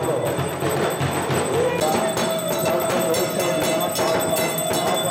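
Festival percussion music: drums with rapid, dense bell strikes, and a steady held tone joining about two seconds in.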